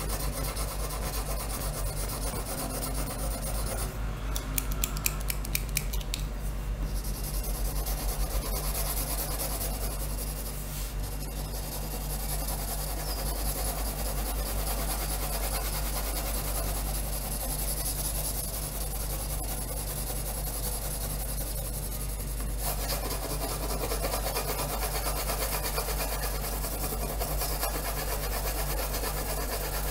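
Pencil lead scratching on paper in hatching strokes, with a run of quick back-and-forth strokes a few seconds in, over a steady low hum.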